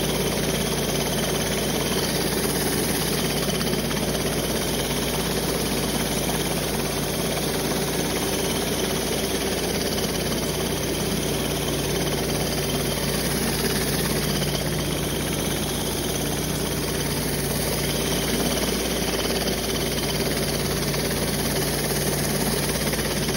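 Surface cleaner running on a pressure washer, spraying over wet concrete with a steady hiss and a steady engine note underneath.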